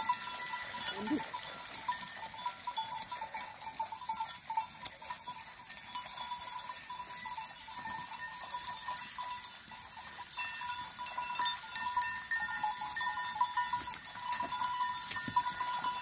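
A herd of desi goats moving past in a crowd, with scattered small clicks and rustles of hooves on the bank and a single short bleat about a second in. A steady high ringing tone sits behind them.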